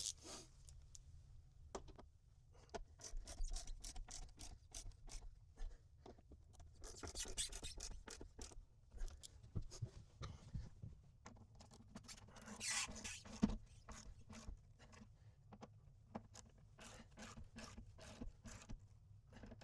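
Ratchet wrench clicking in runs of quick strokes as the cubby's mounting bolts are tightened, with some rubbing and scraping of parts in between.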